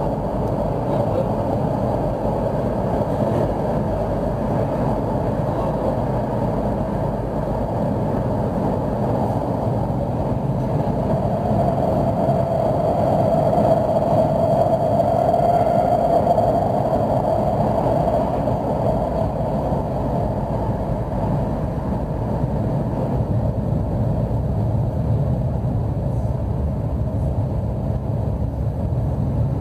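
CAF AS 2014 steel-wheeled metro train running at speed through a tunnel, heard from inside at the front of the train: a steady running rumble that grows a little louder about halfway through, then eases back.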